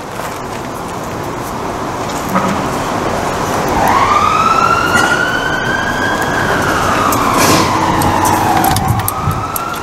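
A siren wailing: its tone rises about four seconds in, holds, slides slowly down, and starts rising again near the end, over a steady background hiss.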